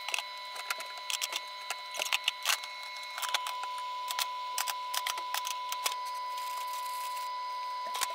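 Drink bottles, cans and snack bars being loaded by hand into the trays and spirals of an open vending machine: irregular clicks and knocks as items are set in, over a steady high whine.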